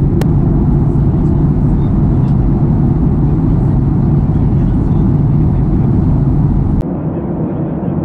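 Steady rumble of a jet airliner's cabin in flight: engine and airflow noise heard from a window seat. About seven seconds in it cuts abruptly to a quieter, duller-sounding recording of the same cabin noise.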